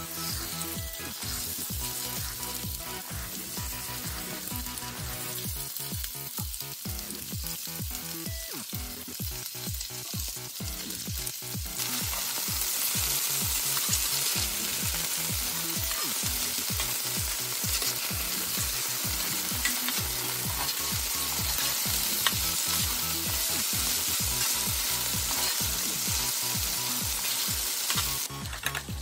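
Chicken pieces coated in starch frying in hot oil in an enamelled cast-iron skillet, sizzling steadily, while a metal slotted spatula stirs and turns them. The sizzle grows much louder and brighter about twelve seconds in, once the pan is full.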